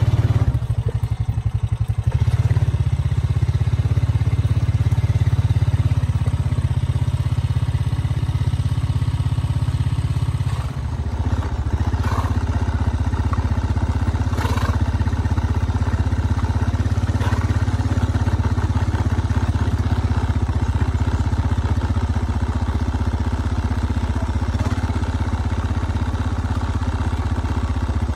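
A small engine running steadily at low speed, a low drone. It dips briefly about eleven seconds in and carries on at a slightly different pitch.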